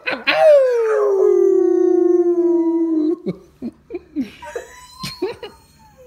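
Dog howling: one long howl that rises, falls and holds for about three seconds, followed by a few short cries that fade out.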